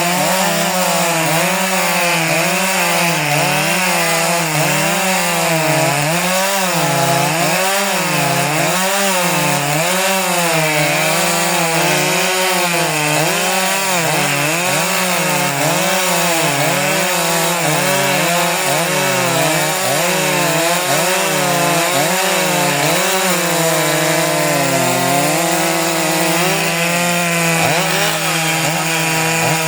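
Large Stihl chainsaw running at full throttle while cutting wood, its engine pitch rising and falling about once a second as the chain bites and eases. From about 23 seconds in the pitch holds steadier.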